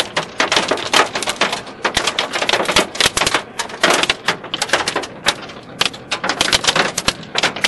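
Hailstones clattering on a car's body and windscreen, heard from inside the cabin: a dense, irregular patter of sharp hits.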